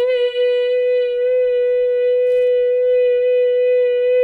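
A single loud electronic tone, held steady at one pitch, buzzy with a row of overtones.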